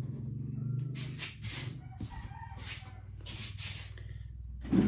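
Chickens clucking with a few short calls.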